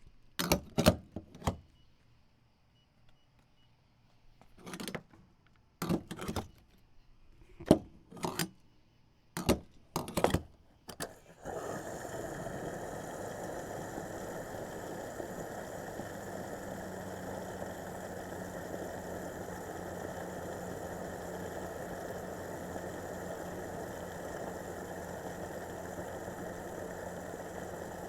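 Gas pump refuelling: about ten sharp clicks and clunks over the first eleven seconds, then the pump starts and runs with a steady whir of fuel flowing.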